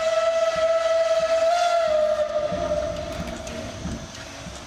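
Steam locomotive whistle blowing one long held note, which sags slightly in pitch about two seconds in and fades towards the end. A low rumble comes up underneath in the second half.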